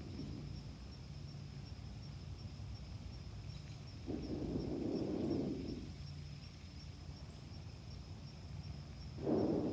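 Two slow breaths let out, a long one about four seconds in and a shorter one near the end, over a faint steady low hum and a thin, steady high-pitched whine.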